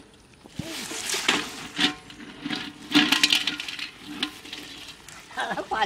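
A wet nylon cast net being handled over loose stone gravel: scraping, crunching and rustling in short irregular bursts.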